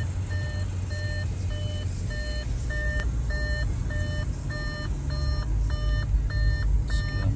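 The 2014 Audi RS5's cabin warning chime beeping steadily and repeatedly, nearly two short electronic beeps a second, over a low steady rumble.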